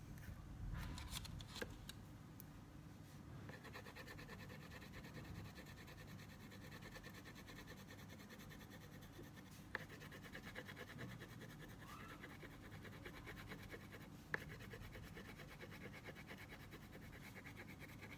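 Crayon rubbed back and forth on paper in fast shading strokes, a faint steady scratching. A few light clicks and taps sound near the start and twice more later.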